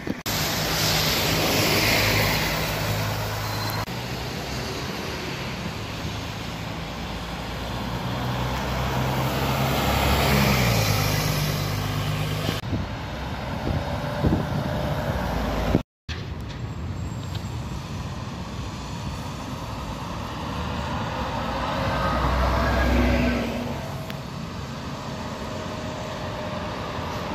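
Diesel city buses running and driving past on the road, their engines swelling three times as they pass, over steady traffic noise.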